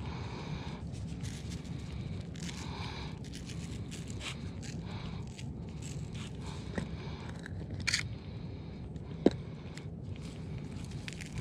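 Oak wood fire crackling in a grill, with scattered sharp pops, a few louder ones late on, while spice shakers rattle as seasoning is shaken out.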